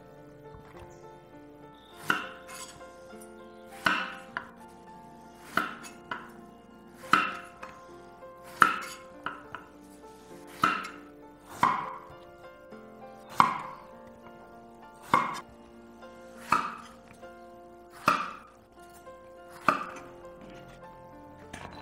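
Chef's knife slicing peeled loofah into wedges on a wooden cutting board: about a dozen sharp knocks as the blade goes through and hits the board, roughly one every one and a half seconds, starting about two seconds in. Soft background music underneath.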